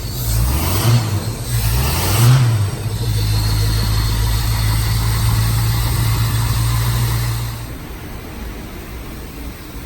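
Car engine revved a few times, then running steadily before dropping away near the end.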